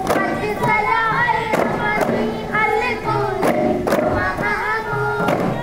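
Duff muttu: a group singing a devotional chorus in unison while striking daf frame drums together, the drum strikes landing in pairs about every two seconds.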